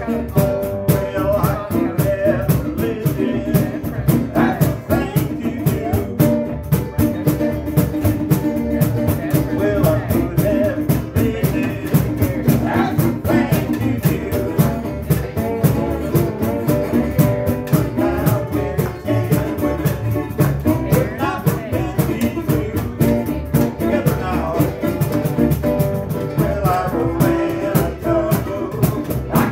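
Small acoustic band playing live: a cajon keeps a steady beat under upright bass and guitars.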